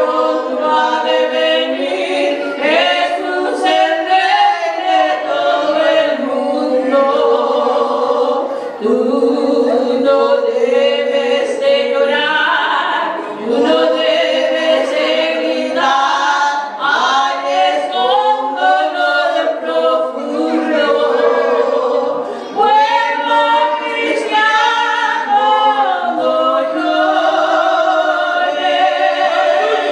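Two women singing a Spanish hymn together as a duet into handheld microphones, with no instruments heard. The singing is continuous, with long held notes and short breaths between phrases.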